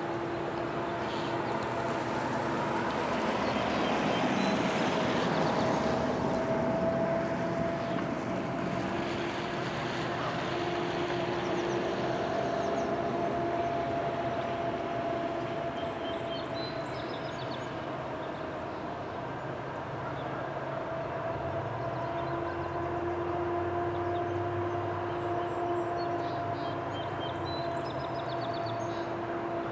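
Approaching CN freight train's GE ET44AC diesel locomotives running at a distance: a steady drone with held, slightly wavering tones, and a deeper rumble building in the last third as the train nears.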